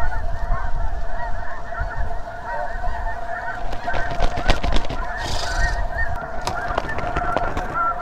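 A large flock of snow geese calling overhead: a dense, unbroken chorus of many short overlapping honks.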